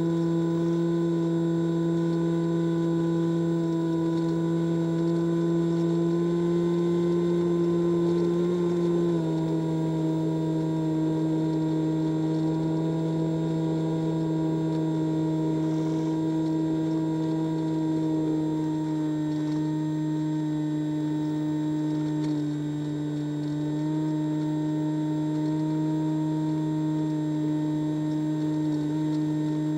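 Multiplex EasyStar RC plane's electric pusher motor and propeller running steadily at cruise throttle, picked up by the onboard camera as a constant droning hum. The pitch steps down slightly about nine seconds in, then sags a little more, with a brief drop in level a few seconds later.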